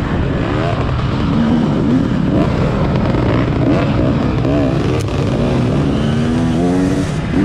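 Dirt bike engine revving up and down as the throttle is opened and eased on a tight trail, the pitch rising and falling every second or so.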